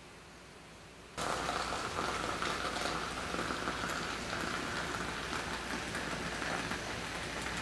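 Hot water poured in a steady stream from a kettle into a glass teapot holding loose black tea leaves, starting suddenly about a second in.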